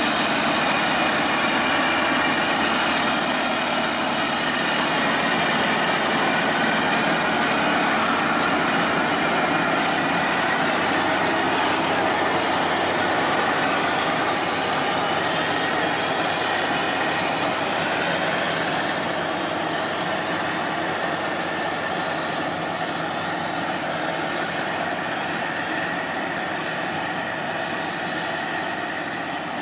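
Crown Sumo rice combine harvester running steadily under load while cutting and threshing rice, its engine and threshing machinery making a continuous mechanical drone. It grows somewhat fainter in the second half as the machine moves off.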